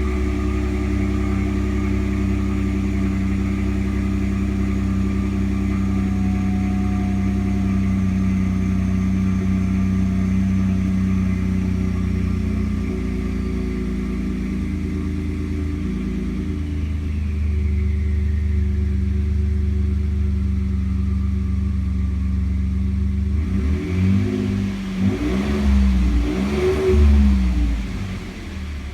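Ford F-150's twin-turbo EcoBoost V6 idling steadily through a stock Raptor exhaust with the resonator deleted, then revved in several short blips near the end.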